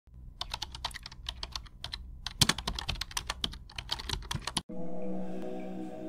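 Rapid keyboard-typing clicks in two quick runs with a short break about two seconds in. Soft, sustained background music takes over near the end.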